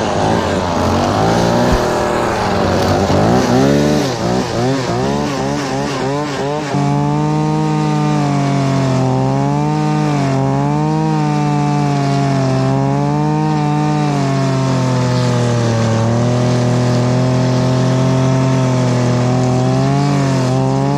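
String trimmer (weed eater) running hard while cutting grass along a concrete driveway edge. Its motor pitch wavers quickly for the first several seconds, then holds steadier with slow dips and rises.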